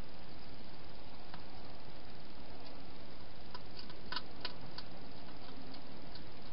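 Wild hedgehog eating at a bowl inside a plastic feeding box: a quick run of four or five small sharp clicks, about halfway through, over a steady hiss.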